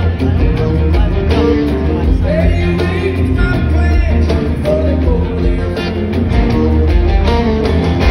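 Live rock band playing, with a man singing lead over electric guitar and a steady low bass line.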